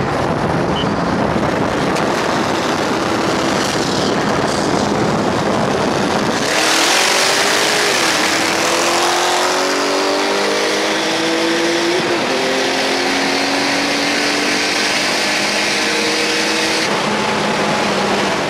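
Car running hard on a roll race, heard from inside the cabin with a lot of wind rush at first. About six and a half seconds in, the car goes to full throttle: a loud hiss joins a rising engine note that climbs, drops at two gear shifts and climbs again. The hiss eases off near the end as the throttle is lifted.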